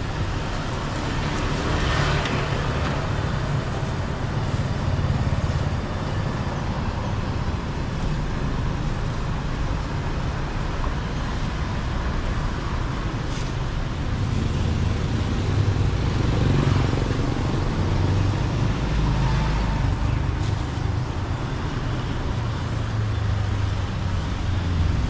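Steady low rumble of street traffic, with a few vehicles passing and swelling louder now and then, about two seconds in and again in the middle.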